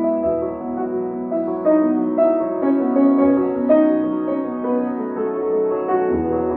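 Background piano music: slow, sustained notes changing every second or so.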